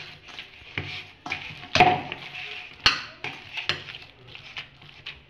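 Soft, oiled dough being kneaded by hand in a stainless steel bowl: irregular knocks and scrapes of the steel bowl as the dough is pressed, the loudest about two and three seconds in.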